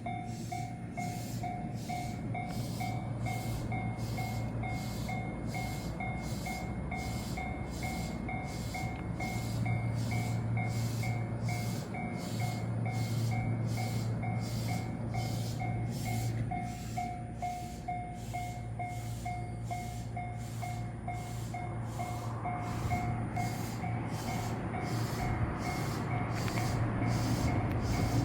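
Japanese railway level-crossing warning bell ringing over and over in rapid, even two-tone strikes, which signals that the barriers are still down.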